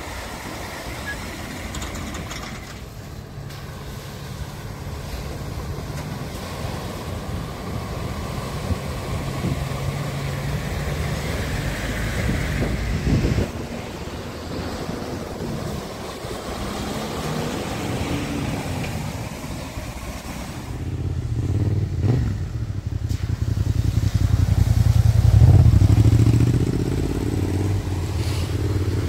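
Vehicles wading one after another through flood water over a ford: engines running steadily under load while water splashes and rushes around the wheels. The loudest pass is a Ford Transit van in the last third, its engine hum growing and then easing off.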